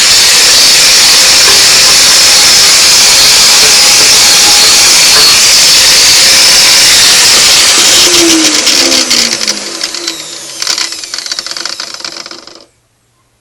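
Handheld rotary power tool scouring rust off a John Deere Type E hit-and-miss engine's bare block: a loud, steady hiss of abrasive on metal. About eight seconds in the tool comes off the work and its motor winds down in a falling whine, then stops abruptly near the end.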